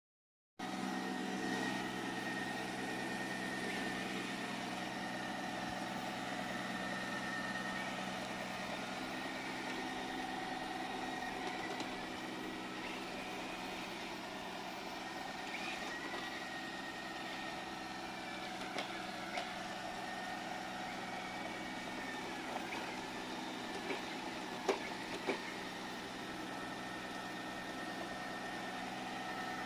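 Robot vacuum cleaner running: a steady motor hum with a high whine, and a few light knocks near the end.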